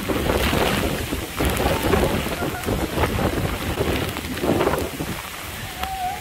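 Hurricane wind and heavy rain, the gusts buffeting the microphone with a low rumble that swells and eases in irregular surges.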